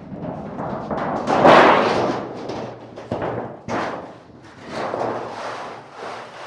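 A large sheet of galvanized sheet metal being pulled out and handled, flexing and wobbling in a series of rumbling swells with a few sharp knocks. The biggest swell comes about one and a half seconds in.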